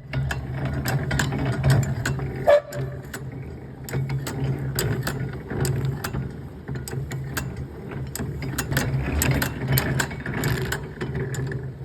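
Antique drill press running, its gears and ratchet feed clicking irregularly over a steady low hum. It runs a little rough.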